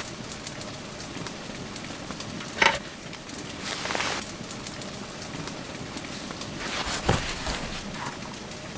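Wood fire crackling in a small camping stove over a steady hiss, with a few louder knocks or clatters at irregular intervals.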